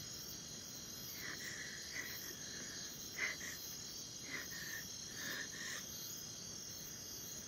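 Night ambience of crickets and other insects: a steady high-pitched chirring, with a few short, faint sounds in the middle.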